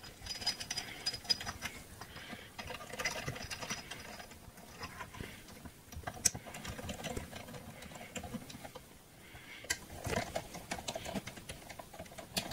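Light metal clicking and rattling of small cylinder head bolts being threaded into a VIAIR 450C air compressor's head by hand, with one sharper click about six seconds in.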